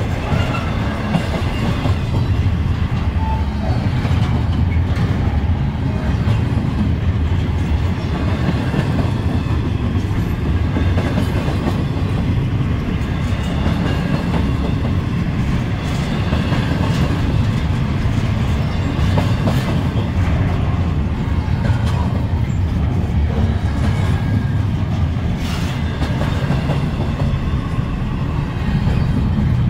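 Double-stack intermodal freight cars rolling past at close range: a steady rumble of steel wheels on rail, with occasional clicks as the wheels pass over rail joints.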